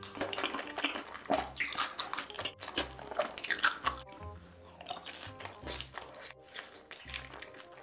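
Crunching bites and chewing of sauced fried chicken, densest in the first half, over background music with a steady low beat that comes to the fore in the second half.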